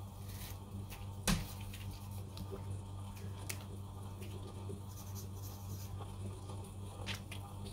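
Faint rustling and scratching of cloth being handled, with one sharp click about a second in, over a low steady hum.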